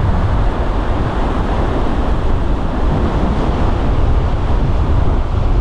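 Strong wind buffeting the microphone, with ocean waves breaking on the shore underneath, a loud and steady rumble.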